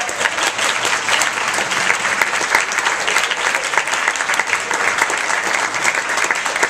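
Audience applause: many people clapping together, dense and steady.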